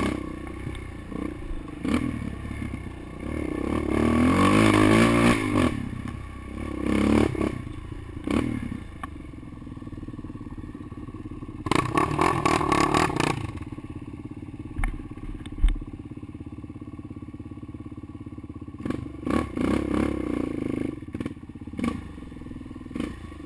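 Quad bike engine revving in surges and easing off as it rides a rough dirt trail, with the machine rattling and clattering over bumps. The revs climb hardest about four to five seconds in and again around twelve seconds, then settle to a lower, steadier running.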